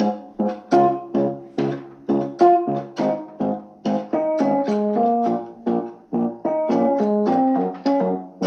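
Samsung Galaxy ringtone playing a melody of short electric-piano-like keyboard notes, about two to three a second, each starting sharply and fading quickly.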